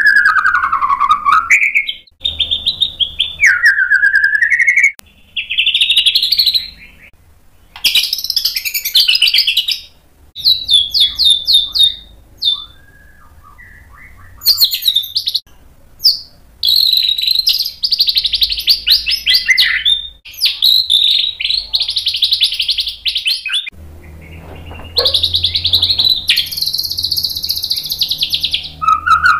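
Male white-rumped shama singing a long, loud, varied song: sliding whistles and fast trills in quick succession, broken by a few short pauses.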